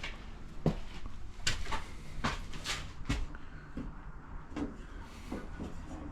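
A dozen or so irregular light knocks and clicks, like cupboard doors and other things being handled in a small room.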